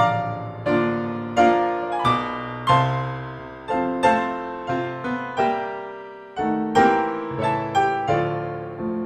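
Background piano music: a slow melody of single struck notes, each dying away before the next.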